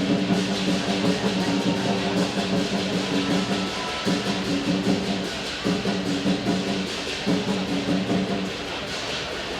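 Music with a drum beat and phrases of held notes repeating about every one and a half seconds.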